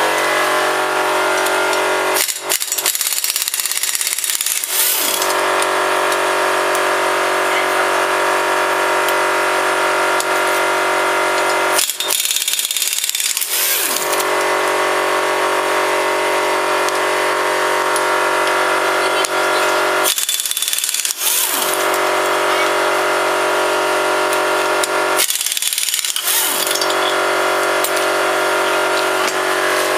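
Air compressor running steadily: a constant mechanical hum with a hiss on top. The low part of the hum drops out briefly four times.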